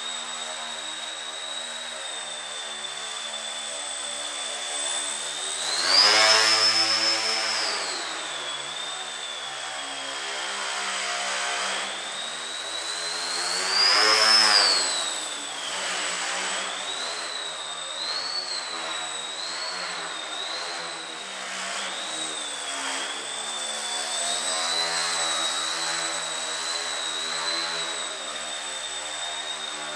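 Small electric motor and propeller of a Breeze Pro FP3 indoor foam plane whining in flight. The pitch wavers with the throttle and twice swells louder and higher, about six and fourteen seconds in.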